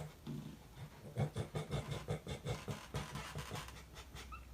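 A pet panting quickly and faintly in a run of short, even breaths, about four or five a second, for a couple of seconds.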